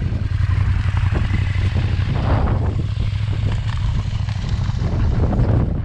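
Motorcycle engine running steadily on the move, with a constant low drone and wind noise on the microphone.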